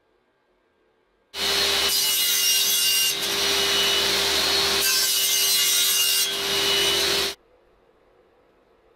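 Table saw cutting a small piece of wood: blade noise over a steady motor hum, starting about a second and a half in and cutting off sharply about seven seconds in, with two brief dips partway through.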